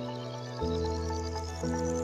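Soft instrumental music: sustained chords shifting twice, under a run of high notes climbing steadily upward.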